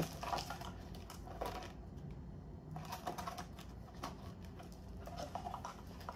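Faint scattered light clicks and paper rustles of cash envelopes being handled.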